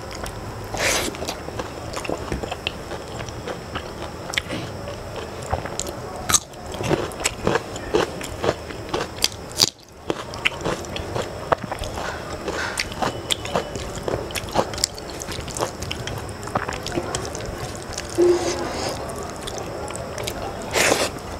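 Close-up eating sounds: chewing and biting rice and fish curry eaten by hand, with many small sharp clicks and smacks, and fingers working the food on a steel plate.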